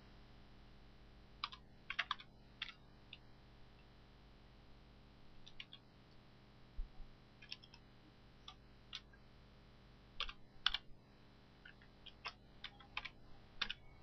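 Computer keyboard keystrokes, faint, tapped in short irregular runs with pauses between them as an email address is typed.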